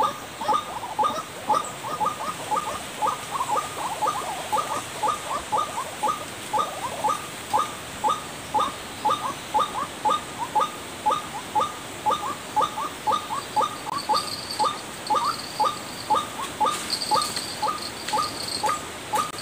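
White-breasted waterhen lure call: short calls repeated rapidly and evenly, about three a second, without a break. Near the end a faint, higher chirping joins in.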